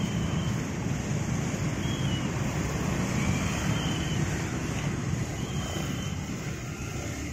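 Road traffic at a level crossing: motorcycles and cars running and pulling across the tracks, with wind on the microphone. Short faint high chirps come every second or two.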